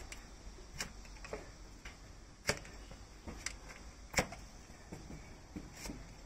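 A broad flat hoof-paring blade, pressed by hand, cutting down through a donkey's hard, overgrown hoof horn on a hoof stand. It gives about five sharp cracks a second or so apart, the loudest two in the middle, with lighter ticks of paring between them.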